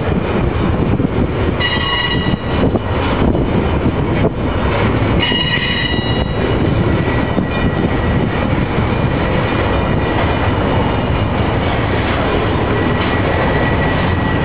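BNSF double-stack container train's cars rolling past: a loud steady rumble of wheels on rail, with brief high-pitched wheel squeal about two and five seconds in and a fainter squeal tone through the second half.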